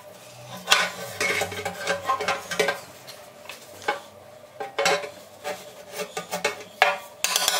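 Steel bar knocking and scraping inside a metal motorcycle petrol tank as dents are pushed out from the inside: irregular metallic clinks, knocks and scrapes. Near the end a faster, continuous run of tapping sets in.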